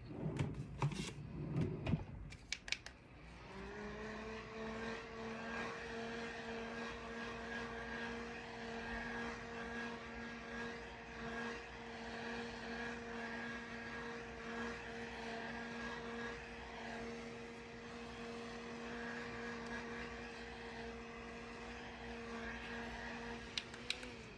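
A few clicks, then a small handheld battery-powered fan starts about three seconds in, spinning up to a steady motor hum that holds until it winds down and stops near the end.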